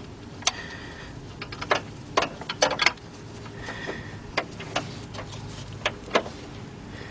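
Irregular metal clicks and knocks of a 13 mm wrench working an alternator bolt loose in a car's engine bay, a dozen or so sharp strikes bunched in the first half and a few more spread after.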